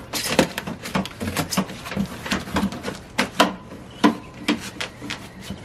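Plastic accordion side panel of a window air conditioner being fed into the unit's side rails: a run of irregular plastic clicks, clacks and rubbing.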